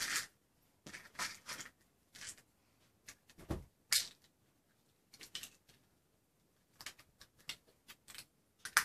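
Hands handling medication, with a small plastic pill organizer and tablet packets: scattered light clicks and rustles, with one dull thump about three and a half seconds in.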